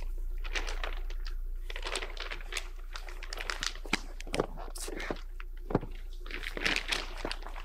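A large white sheet rustling and crackling as it is lifted, unfolded and spread out by hand, with a few knocks in among it, over a low steady hum.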